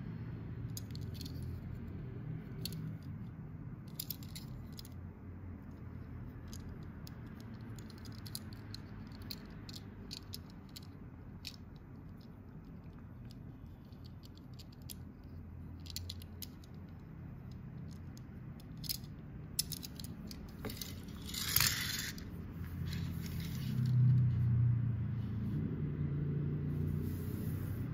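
Small clicks and taps of a diecast model car being handled and turned in the fingers, over a steady low hum. A brief rustle comes about three-quarters of the way through, and a louder low rumble follows near the end as the car is set down on the table.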